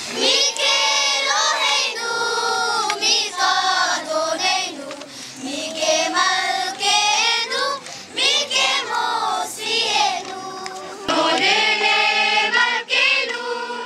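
A group of children singing together as a choir, in sung phrases with short pauses between them.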